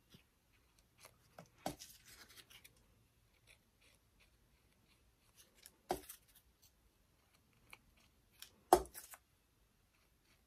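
Faint handling of paper petals and tools on a work table: scattered light rustles and clicks, with a sharper knock about two seconds in, another about six seconds in, and the loudest about nine seconds in.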